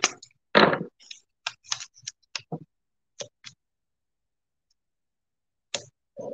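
Masking tape being pulled off its roll and torn by hand: a short rip about half a second in, then a string of small sharp crackles and ticks as the strip is handled and pressed down. A pause of about two seconds, then a few more crackles near the end.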